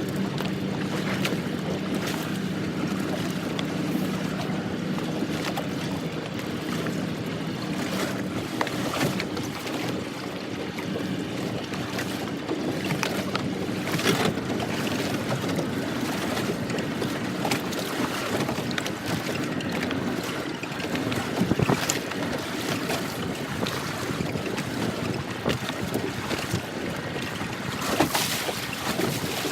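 Fishing boat at sea: steady wind noise and water sounds with scattered light knocks, and a low engine hum that fades out after about seven seconds.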